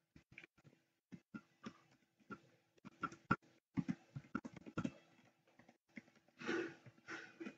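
Computer keyboard keys being typed and deleted in an irregular run of faint clicks, with a brief louder, fuller sound about six and a half seconds in.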